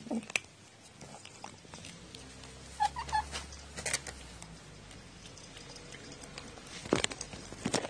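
A cat eating kibble from a bowl: irregular chewing crunches and wet mouth clicks, with a few short high little mouth sounds about three seconds in and the loudest crunches near the end.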